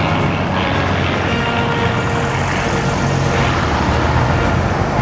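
A de Havilland Mosquito's two Rolls-Royce Merlin V12 engines running steadily as it flies past.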